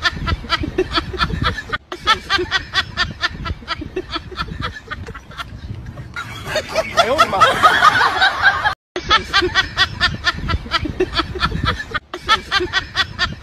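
A person laughing in a quick run of short bursts, about five a second, cut off and restarted several times by abrupt edits. A few seconds past the middle, a louder voice with swooping pitch takes over for a while.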